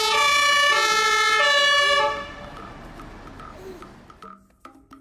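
Scania fire engine's two-tone siren, switching between a lower and a higher note about every half second, stops abruptly about two seconds in. Fainter street noise follows and fades, with a few sharp clicks near the end.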